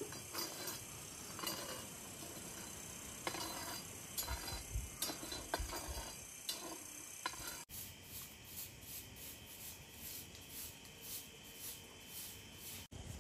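Food-preparation handling sounds: irregular clinks, taps and knocks of utensils and dishes, some with dull thuds. After about eight seconds, a regular high-pitched ticking about twice a second takes over.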